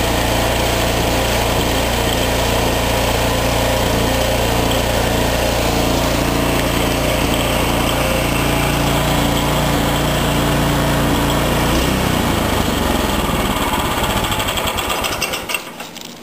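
16 HP PowerMax snowblower engine running steadily at its governed top speed, adjusted to about 3600 rpm. About twelve seconds in its sound changes, and near the end it runs down and stops.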